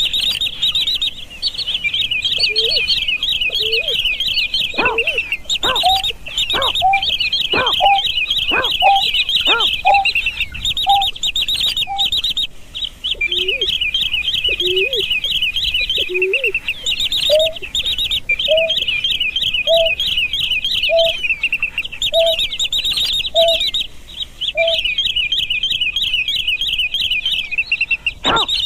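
Greater painted-snipe calls: a series of short, low, hollow hooting notes repeated about once or twice a second, some sliding in pitch. Throughout, they sit over a continuous wash of rapid, high-pitched chirping.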